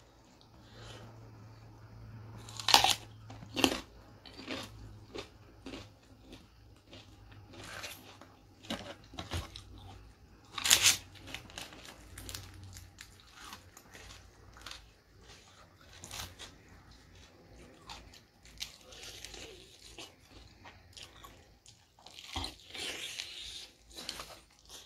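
Close-up eating sounds: crispy fried chicken and raw vegetables bitten and chewed, with irregular crunches, the loudest about 3 seconds in and again about 11 seconds in, and smaller wet chewing clicks between.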